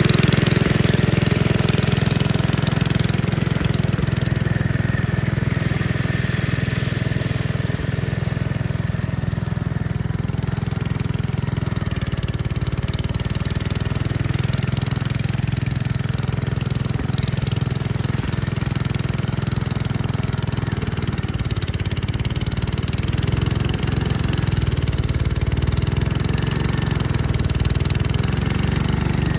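Gravely Commercial 10A walk-behind tractor engine running steadily while driving a Dogeater snowblower attachment, with slight changes in load.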